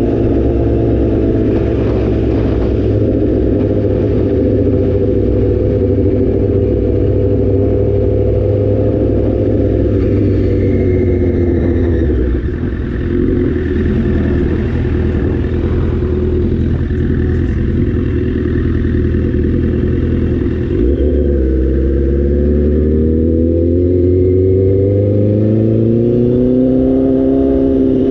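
Motorcycle engine running steadily while riding, heard from on the bike. It eases off briefly about halfway through, then the engine note rises steadily over the last several seconds as the bike accelerates.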